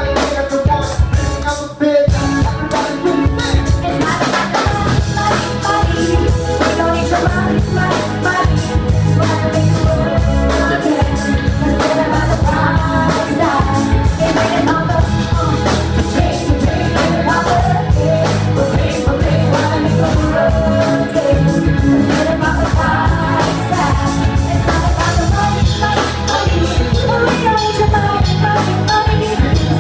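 Live band playing a song: a woman singing lead into a microphone over electric guitars, a drum kit and a keyboard.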